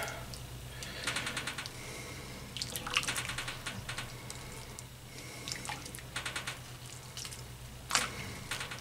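Broth-heavy stew sloshing and splashing as a plastic spoon stirs it in a cast-iron Dutch oven, with irregular small clicks and knocks of the spoon against the pot and its contents.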